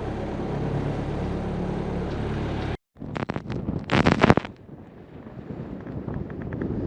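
Sailboat's inboard engine running steadily in gear at about 2,000 RPM, holding the boat against a strong current to take the strain off the anchor rode. After an abrupt cut, wind buffets the microphone with a loud gust about four seconds in, then settles into a steady rush.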